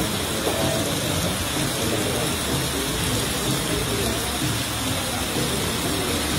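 Steady rushing of fast-flowing floodwater, a constant even roar with no breaks.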